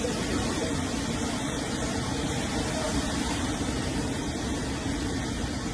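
Hurricane storm noise: a steady roar of wind and surging water with no sudden changes.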